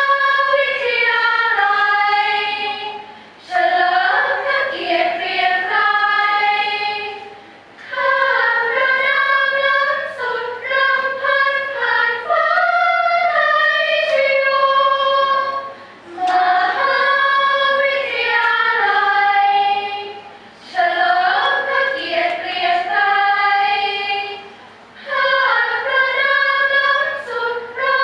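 A women's choir singing in harmony, several vocal parts together, in phrases a few seconds long with short gaps between them.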